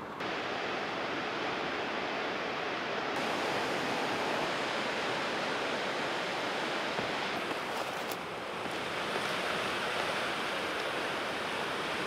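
Steady wash of ocean surf.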